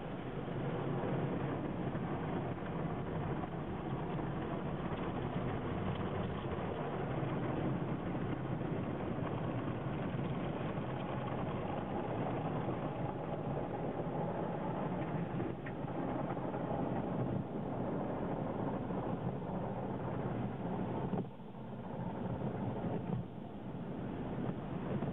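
Automatic car wash machinery running with a steady rushing noise, dipping briefly twice near the end.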